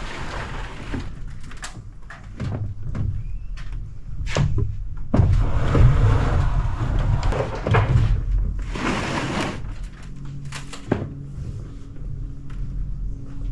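Scattered knocks and thuds of roof panels being handled and lifted off a roof, some sharp, over a low rumbling background.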